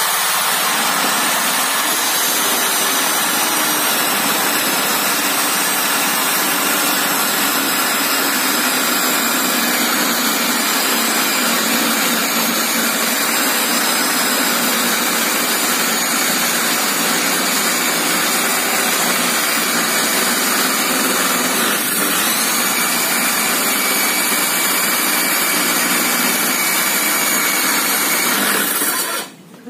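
Uchiha UC 255 900-watt circular saw with a 7¼-inch blade running under load, ripping lengthwise through a 2-inch-thick wooden beam. The motor's high whine wavers slightly with the load throughout the cut, and the saw cuts off suddenly near the end.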